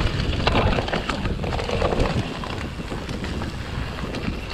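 Enduro mountain bike descending a dirt trail: tyre noise on the ground with scattered clicks and knocks from the bike, and wind buffeting the helmet-mounted camera's microphone.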